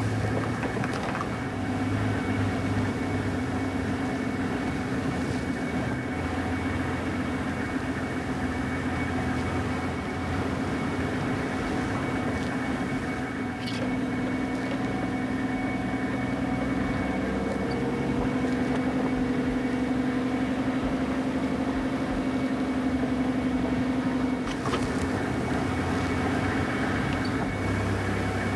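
A vehicle engine running steadily with a low hum, its pitch shifting slightly a little past halfway.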